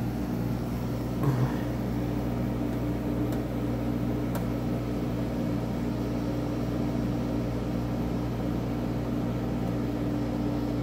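Portable dehumidifier running with a steady hum, with a brief bump about a second in.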